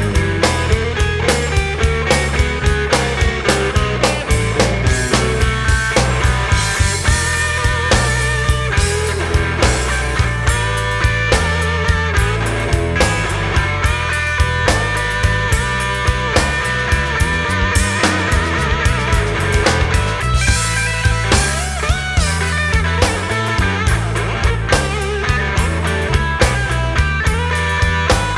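Rock music with guitar over bass and a steady beat.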